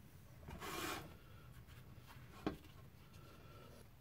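Quiet handling noises: a brief rubbing scrape about half a second in, then a single sharp click about two and a half seconds in.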